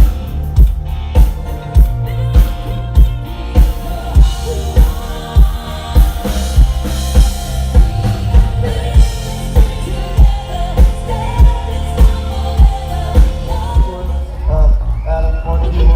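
Live band playing a song: a drum kit keeps a steady kick-drum beat, about three beats every two seconds, with snare hits, under bass and other instruments.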